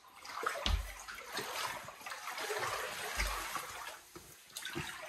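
Floodwater sloshing and swishing around the legs of someone wading through a flooded room, with two dull low thumps.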